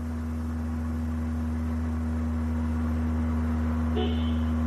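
Low, steady drone from the car's driveline, slowly growing louder, with a brief higher sound about four seconds in. It is the booming noise the customer complains of, thought to come from an out-of-balance driveshaft.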